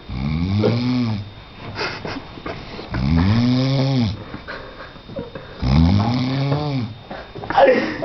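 A man snoring: three long snores about three seconds apart, each lasting about a second and rising then falling in pitch.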